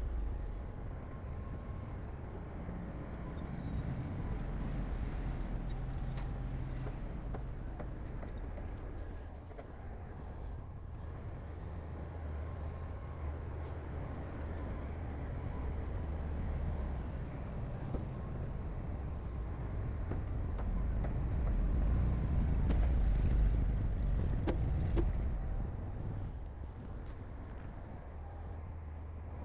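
Diesel engines of heavy earthmoving machinery running, a low steady rumble that swells louder about three quarters of the way through, with a few faint knocks.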